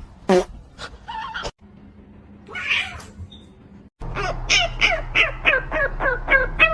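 A cat meowing, then, from about four seconds in, a rapid string of short, repeated meows at about three or four a second.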